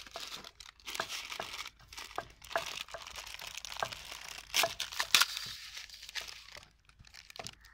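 Crinkling and tearing of a small plastic spice sachet as it is handled and opened, with a few louder crackles about five seconds in.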